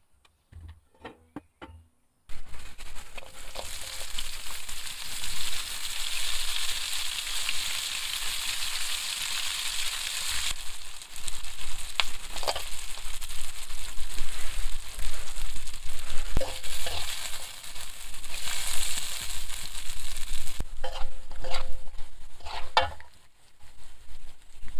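Food sizzling in hot oil in a pan. The sizzle starts suddenly about two seconds in and stops suddenly near the end, with a few sharp clicks of a utensil against the pan.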